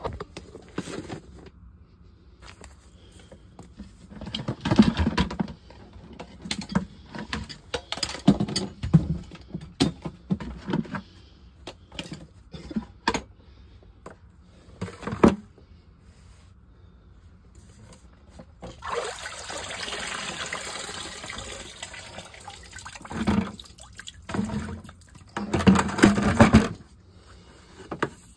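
Water rushing in a sump pit for about three seconds, after a stretch of irregular knocks and clunks from the pipe, cord and hose being handled around the pit; more loud clunks follow.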